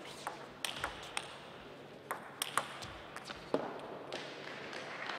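Table tennis ball struck back and forth in a fast rally: about eight sharp, light clicks of the celluloid ball on rubber-faced bats and on the table, ending about three and a half seconds in when the point is won.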